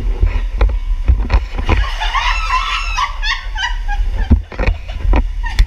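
A woman's high-pitched, wordless shriek of surprise about two seconds in, wavering and lasting around a second, followed by short excited cries. A steady low rumble and scattered knocks run underneath.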